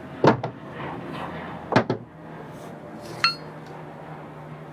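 Sharp metal-on-metal knocks and clinks from Honda CT110 front fork parts being worked on: a pair of knocks near the start, another pair before halfway, and a single strike later that rings like struck steel.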